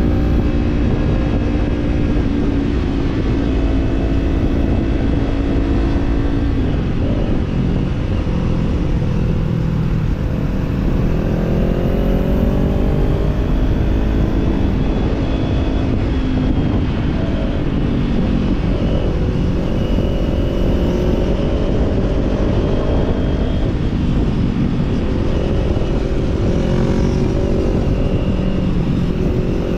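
Kawasaki Z-series parallel-twin motorcycle engine running under way through an aftermarket slip-on exhaust. The engine note drops about six seconds in, then rises steadily as the bike accelerates and settles into a steady cruise.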